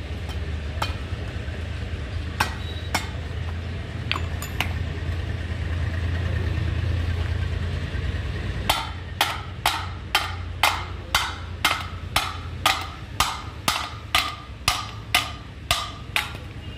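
A low steady hum with a few scattered clicks. From about halfway, a hammer strikes metal in a steady rhythm, about two blows a second: typical of knocking a propeller shaft's universal-joint cross in or out of its yokes.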